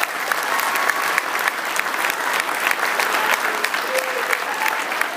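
A crowd applauding: steady, dense clapping with a few voices calling out within it.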